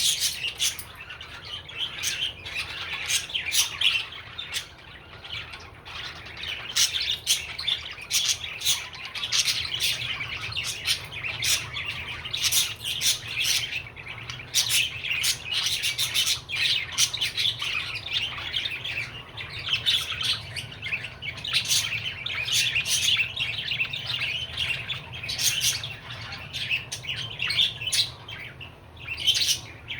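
Budgerigar chattering and warbling without pause, a rapid run of chirps, squeaks and clicks, over a low steady hum.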